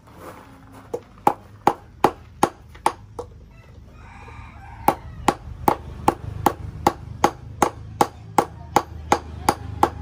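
Hand hammer beating a silver ring on a small metal block to shape and thin it. The blows are sharp and evenly spaced, about two and a half a second, with a pause of under two seconds a little past the middle.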